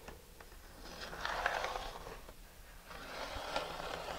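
Pencil drawing long lines along a rocket body tube, guided by an aluminum angle: a soft scratching stroke about a second in, lasting over a second, and a second stroke starting near three seconds.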